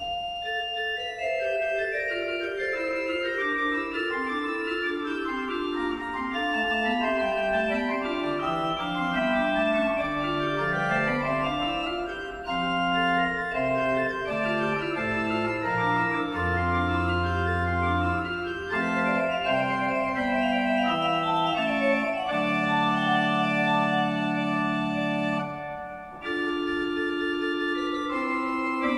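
Pipe organ playing a Baroque-style piece in several voices, with running lines over held notes. A deep pedal note sounds around the middle. The music breaks off briefly near the end, then goes on.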